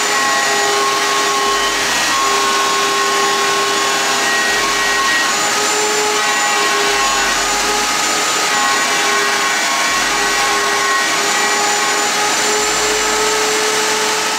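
A table-mounted router running steadily, its bit notching white PVC blocks fed along the fence, with a dust-collection vacuum running alongside. The steady whine wavers slightly in pitch as the cut loads the motor.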